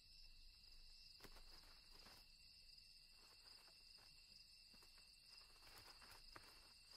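Near silence: faint, steady, high insect trilling of night crickets, with a few soft ticks.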